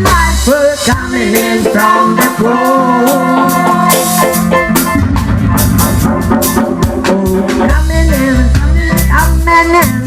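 Live band music with a drum kit and a wavering melodic line. The bass thins out about a second in and comes back full near the end.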